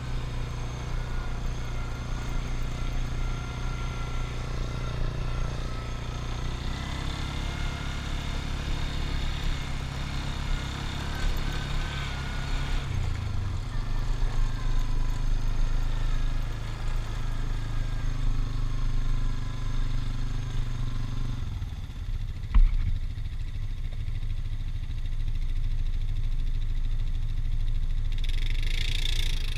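ATV engine running steadily while riding a dirt trail, its note shifting several times with throttle changes. A single sharp knock about two-thirds of the way through is the loudest sound.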